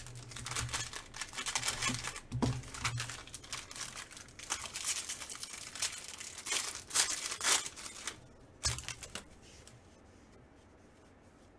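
Foil wrapper of a 2016 Bowman Draft super jumbo baseball card pack crinkling and tearing as it is ripped open by hand. The sound dies down after about eight seconds as the cards come out.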